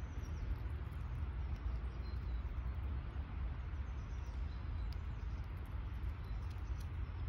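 Steady low outdoor rumble, with a few faint high bird chirps and small clicks over it.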